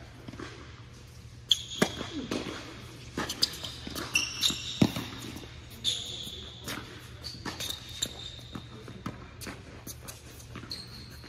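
Tennis balls struck by racquets and bouncing on an indoor hard court during a serve and rally, a sharp knock every second or so. Between the hits come short high squeaks of tennis shoes braking on the court surface.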